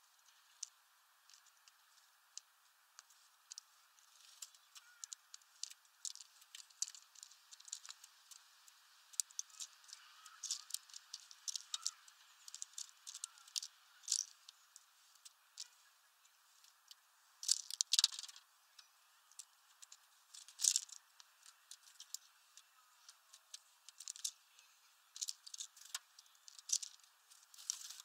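Irregular sharp clicks and taps of Eurasian tree sparrows pecking and cracking sunflower seeds on a feeder tray. They grow busier about nine seconds in, with the loudest snaps around eighteen and twenty-one seconds.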